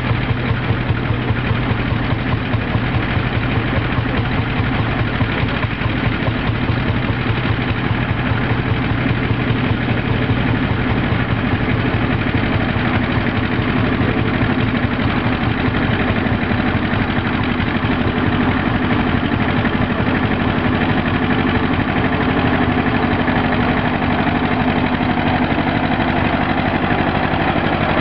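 Vintage Schlüter tractor engine running steadily under load, pulling a plough, with a fast even beat.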